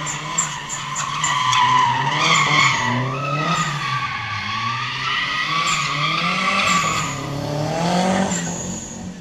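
Drift car's engine revving up and down as it slides sideways, with tyres squealing. The sound fades near the end.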